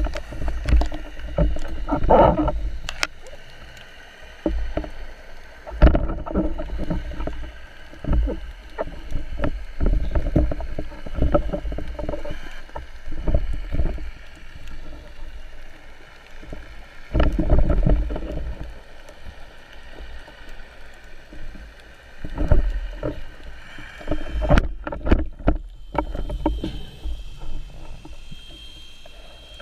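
Seawater sloshing and buffeting around a camera in the sea, coming in irregular surges, with a faint steady high whine underneath.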